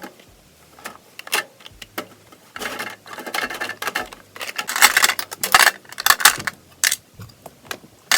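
Small hard objects clattering and clinking in irregular bursts: makeup products being handled and put into drawers.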